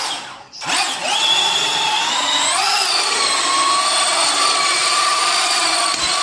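A toy RC drift car's electric motor whining at speed. Its pitch climbs about two and a half seconds in, then holds steady until it cuts off near the end.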